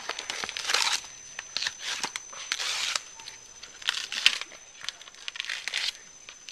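Leafy vegetation rustling, crackling and tearing in irregular bursts about once a second, with sharp snaps mixed in, as gorillas move through and handle bamboo and vines.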